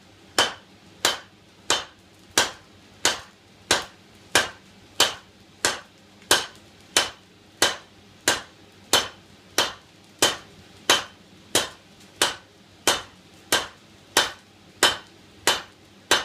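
A 4.5-pound hand hammer striking a red-hot 16 mm round steel bar on an anvil, drawing it out in steady blows about three every two seconds.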